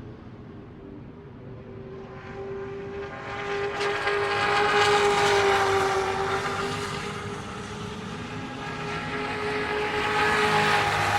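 NASCAR stock car V8 engines running at high, nearly steady revs, growing louder to a peak about five seconds in, easing off, then swelling again near the end as cars pass.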